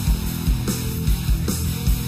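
Heavy rock instrumental music: an electric guitar lead over a backing track with a steady kick-drum beat.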